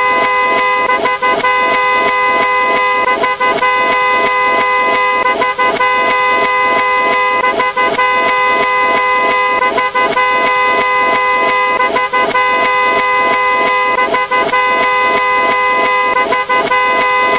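Car horn sound effect honking over and over, about four times a second, the overlapping honks running into one continuous blare.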